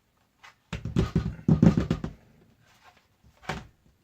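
Handling noise as the Chromebook and tools are worked on during screw removal: a rapid clatter of knocks and rubs lasting about a second and a half, then one short knock near the end.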